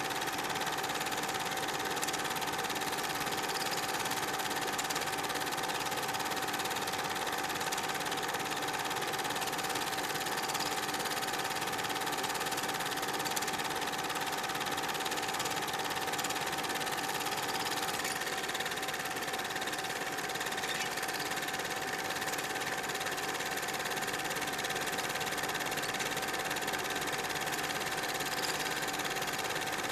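Super 8 film projector running: a steady mechanical whir and clatter with a constant humming tone, which shifts slightly about eighteen seconds in.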